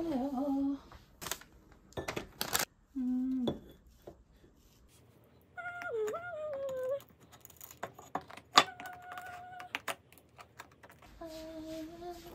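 Knife and plate clinking on a ceramic plate as a hard, crunchy almond pastry is cut, in a series of sharp clicks with one loud clack about eight and a half seconds in. Several short pitched, voice-like sounds come between them.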